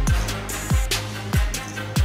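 Background music with a steady beat: a deep kick drum that drops in pitch, hitting about every two-thirds of a second, with sharp percussion hits over it.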